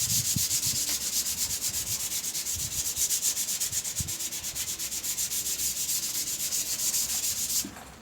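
Sandpaper scraping over a sealer-coated wooden surface in quick, even strokes, sanding down the sealer coat before varnish. It stops suddenly near the end.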